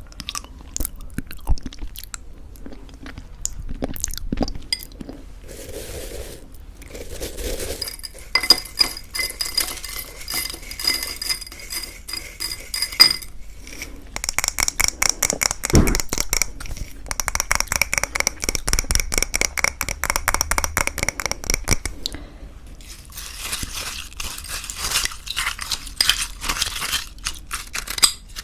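A spoon clinking and scraping against a bowl while homemade granola is mixed into thick yogurt, picked up by a close ASMR microphone. It comes in long runs of rapid clinks with a faint ringing tone, with a few scattered clicks earlier on.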